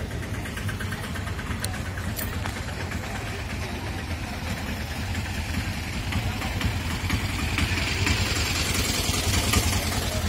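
A nearby motor-vehicle engine idling steadily, a constant low hum that grows somewhat louder toward the end.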